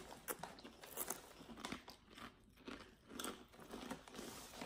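Faint, irregular crunching of crinkle-cut dill pickle potato chips being chewed.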